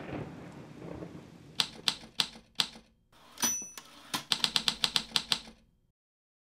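Typewriter sound effect typing out a title: four separate keystrokes, a bell ding, then a quick run of about ten keystrokes before it stops. A low rumble fades out during the first second and a half.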